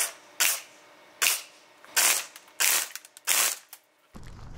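An airsoft gun fires about six single shots in three and a half seconds at a pair of cheap shooting glasses, with the BBs striking the glasses as they are shot-tested.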